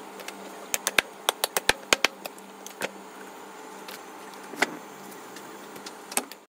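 Butcher's knife working through a whole sheep carcass on a wooden chopping block: a quick run of about a dozen sharp clicks, then a few single ones, over a steady hum. The sound cuts off suddenly near the end.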